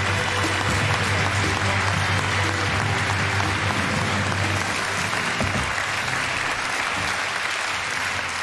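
Large audience applauding steadily, with music playing underneath that fades out about six seconds in.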